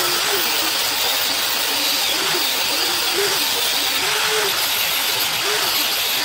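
Handheld electric grinding tool running steadily against the trike's steel frame, stripping the old paint down to bare metal: a continuous hiss over a low hum that wavers in pitch.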